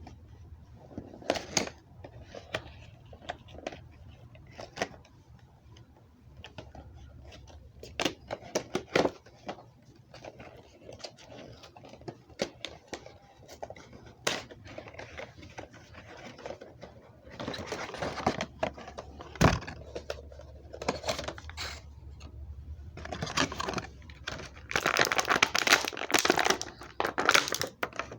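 Action figure packaging being opened by hand: scattered clicks and knocks with rustling and crinkling of cardboard and plastic, busiest near the end.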